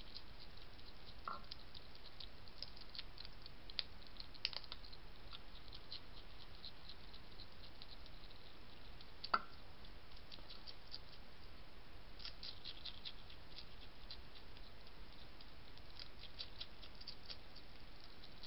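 European hedgehog chewing food from a dish: a run of small, sharp crunches and clicks, with a couple of louder clicks about four and nine seconds in, over a steady hiss.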